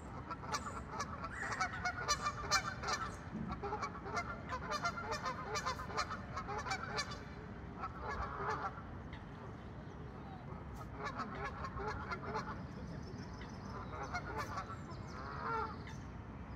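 Geese honking in bouts every few seconds, with short pauses between them.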